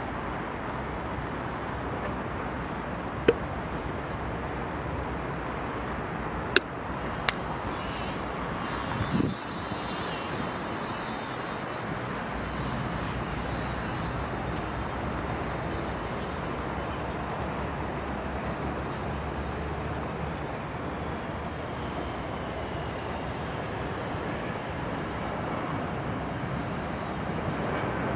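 Distant jet engines of a Boeing 787 at low thrust as it taxis and lines up on the runway, a steady rumbling roar. A few sharp clicks come in the first eight seconds, and a dull thump about nine seconds in.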